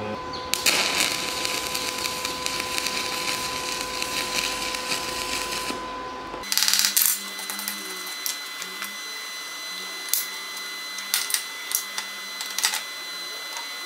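Stick (shielded metal arc) welding on cast iron: the electrode's arc crackles and sizzles steadily for about five seconds, then cuts off. After that comes a quieter stretch with a thin steady high whine and scattered sharp clicks.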